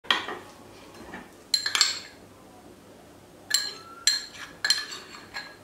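A metal spoon clinking against ceramic bowls as flour is spooned out: about seven sharp clinks with a short bright ring. There is one at the start, a close pair just before two seconds, and a run of four in the second half.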